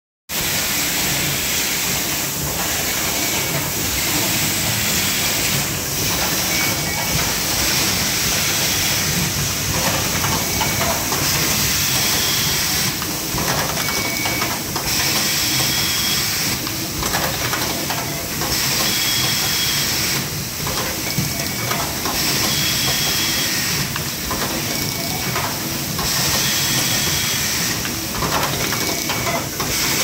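Automated fiber laser spot welding and assembly machine for cellphone connectors running on its cycle: a steady hiss of air and machinery, with pneumatic actuators clacking and puffing about every two seconds and short high beeping tones between strokes.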